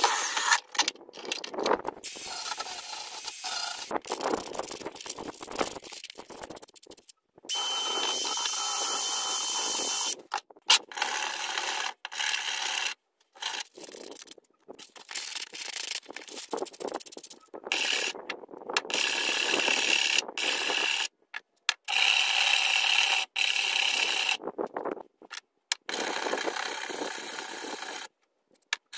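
Sandpaper rubbed by hand over a small cast aluminum part: rough scraping strokes, broken into short pieces by abrupt cuts to silence.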